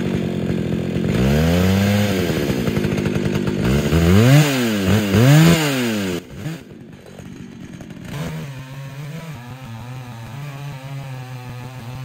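Two-stroke chainsaw engine running and being revved up and down several times, three quick revs in a row near the middle, then dropping back to a steady idle.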